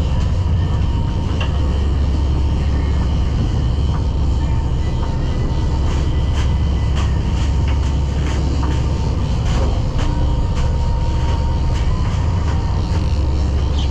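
Party fishing boat's engine running with a steady low rumble and a faint whine over it.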